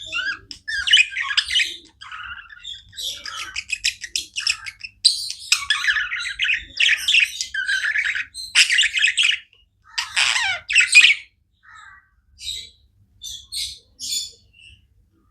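Pet budgerigars chirping and chattering in scratchy, squawky bursts, busy for most of the time, then thinning to a few short, separate chirps near the end.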